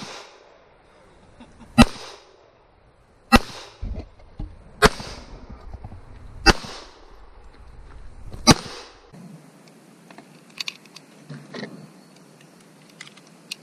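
Five pistol shots fired one at a time, about one and a half to two seconds apart, each with a short echo trailing off. Near the end there are only faint small clicks.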